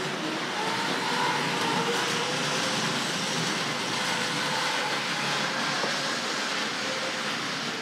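Tri-ang 00-gauge model trains running on the layout, the diesel railcar among them: a steady rumble of wheels on the track under a faint whine from the electric motors that wavers in pitch.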